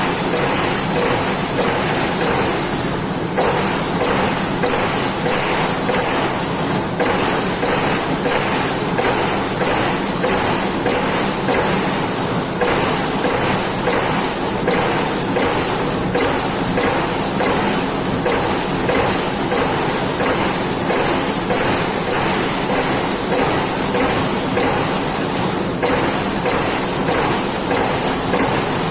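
Amada Pega 357 CNC turret punch press punching sheet metal: rapid, regular punch strokes, about two to three a second, over the machine's steady high whine and hum.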